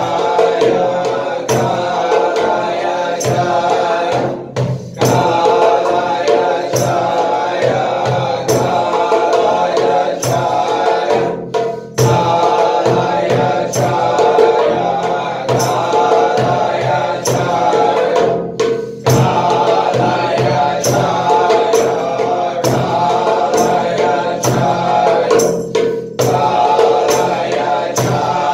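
Chanted mantra music with a steady percussion beat. The sound drops out briefly about every seven seconds, between repeated phrases.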